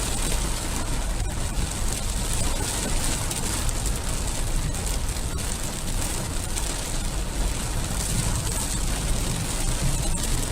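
Heavy rain falling steadily, with wind rumbling on the microphone.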